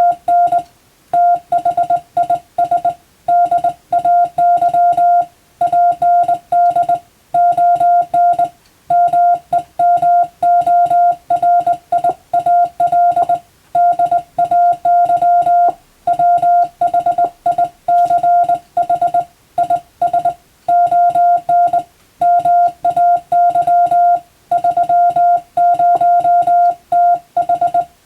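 Morse code sent by hand on a telegraph key and heard as a steady, clear beep keyed rapidly into dots and dashes. The pulses come in quick runs separated by short pauses between letter and word groups, in the rhythm of telegram-text practice.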